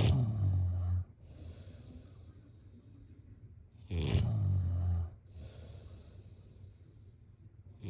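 A person snoring in sleep: low, rattling snores about every four seconds, each lasting about a second, with a softer breathy hiss between them.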